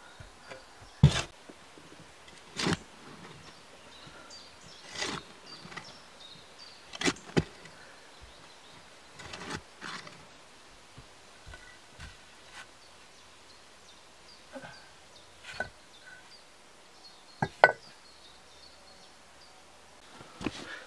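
Digging into a packed earth bank by hand: irregular scrapes and knocks of a tool cutting and loosening soil, a few seconds apart. The loudest is a sharp knock about a second in, and another pair of sharp knocks comes a few seconds before the end.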